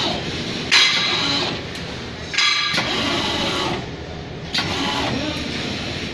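NCP800 NC servo roll feeder and straightener running in test cycles: a mechanical whirr that comes in repeated strokes, one starting about every two seconds.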